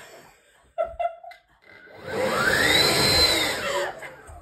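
An electric motor appliance with a fan whirring up and then running down. A rushing noise swells and fades over about two and a half seconds, with a whine that rises in pitch and then falls, starting about a second and a half in.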